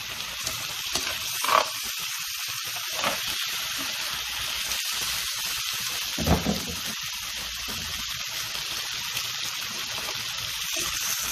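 Chicken, potato slices and onion sizzling steadily on a hot ribbed grill pan, with a few short knocks of metal tongs on the pan as the pieces are turned.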